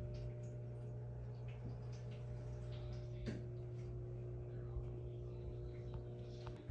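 Steady low hum with a few faint clicks: room tone from a running appliance or motor.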